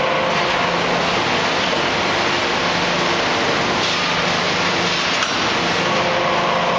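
A 4000-tonne hydraulic open-die forging press at work on a red-hot ingot: a loud, steady noise from its hydraulic system, with a low hum of a few steady tones that drop out briefly partway through and then return.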